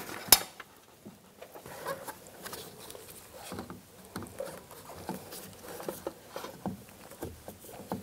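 A sharp plastic snap about a third of a second in as a cap is pushed into the car door, followed by faint, irregular small clicks and rustles of gloved hands handling plastic parts and wiring inside the door.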